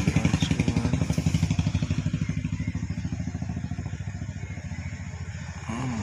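Backhoe loader's diesel engine running with a steady, even beat that fades gradually.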